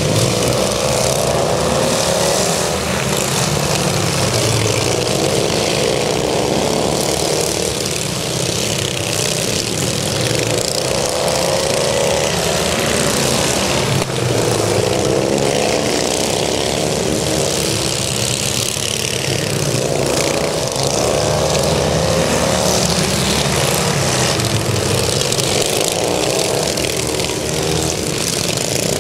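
Several racing riding lawn mowers' small engines running together. Their overlapping pitches rise and fall every few seconds as the pack circles the track.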